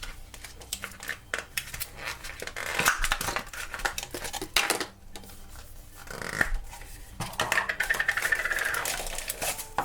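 Hands opening a small plastic Lalaloopsy mini paint-can surprise toy: a run of sharp plastic clicks and scrapes, with a stretch of rustling near the end as the contents are pulled out.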